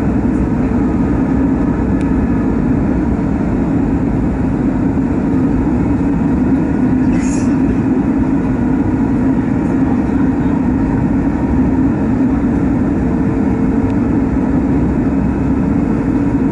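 Steady cabin noise of an Airbus A320neo on approach, the Pratt & Whitney PW1100G geared turbofan and rushing airflow heard from a window seat over the wing, with a faint steady hum. A brief high hiss about seven seconds in.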